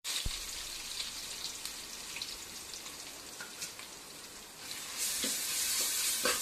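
Food frying in hot oil in a pan for chicken curry: a steady sizzle with a few light ticks. The sizzle grows louder about five seconds in.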